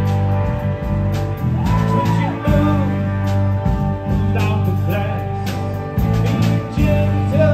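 Live rock band playing: electric guitars, electric bass and a drum kit, with a strong repeating bass line under lead notes that bend in pitch.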